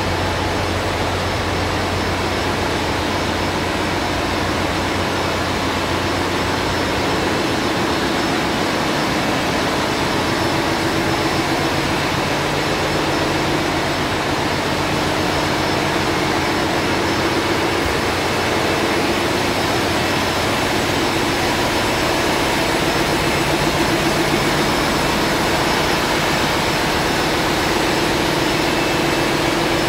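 Ship's engine-room machinery running: a loud, steady drone, with a low hum that fades after the first several seconds and a steady mid-pitched tone that grows stronger from about ten seconds in.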